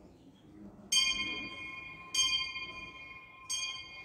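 School bell struck three times, about a second and a quarter apart, each stroke ringing on and slowly fading: the bell rung to call the school to order.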